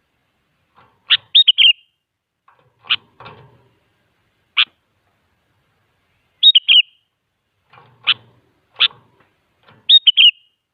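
Sooty-headed bulbul (kutilang) singing: three short runs of quick, falling whistled notes, with four single sharp notes between them and silent gaps in between.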